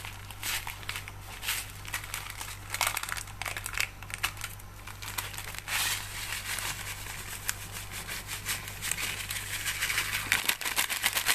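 Foil sachet of kheer mix crinkling again and again as it is held and shaken to pour the powder into a pot of hot milk, over a steady low hum.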